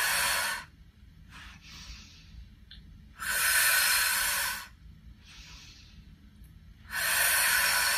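A woman breathing out forcefully in long breaths, three about three and a half seconds apart, with quieter breaths in between. Each breath out is timed to the effort of pushing a leg sideways against a resistance band.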